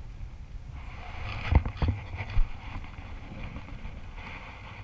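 Wind rumbling on the camera microphone, with three sharp knocks between about one and a half and two and a half seconds in, from handling close to the microphone.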